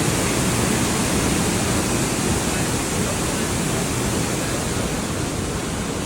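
Steady rushing of a waterfall, an even, loud noise of falling water.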